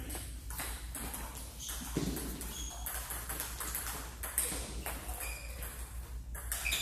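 Table tennis balls clicking off paddles and tables, quick irregular hits from several tables at once, over a steady low hum.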